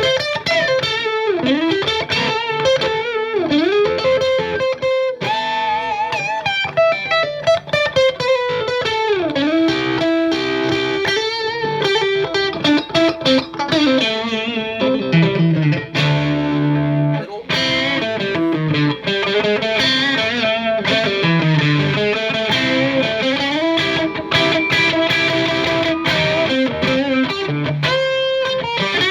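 Strat-style electric guitar on its neck and middle single-coil pickups together, played through the overdrive channel of a Marshall JVM210 combo amp: continuous distorted lead lines, with notes bent up and down in pitch and held notes wavering.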